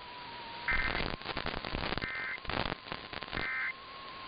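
Three short bursts of Emergency Alert System SAME data tones, a two-tone digital warble, about a second apart: the end-of-message code that closes the alert. Between the bursts is crackling radio static with a faint steady tone.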